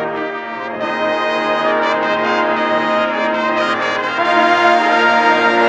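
Marching band brass section playing full, sustained chords, getting louder about a second in and again near the end.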